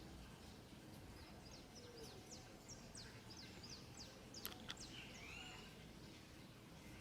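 Faint bird chirping: a quick series of short, high, falling chirps, then two lower sliding calls. Two sharp clicks come just past the middle.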